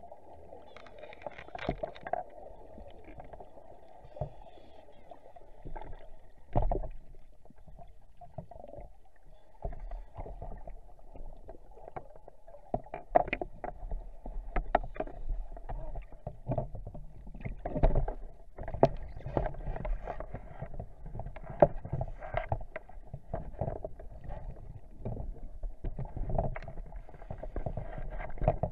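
Muffled underwater bubbling and gurgling as heard by a dive camera in its housing, typical of a scuba diver's exhaled bubbles. Irregular louder bursts and knocks break through, the strongest about six seconds in and several more in the second half.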